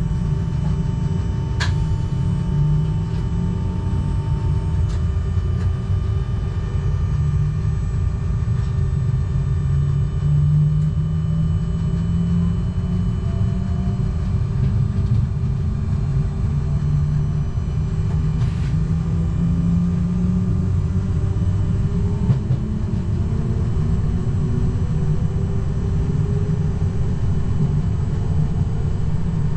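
Z 20500 double-deck RER electric train running, heard from the cab: a steady rumble of the wheels on the track with a low motor whine that shifts in pitch and climbs in the second half. A single sharp click about two seconds in.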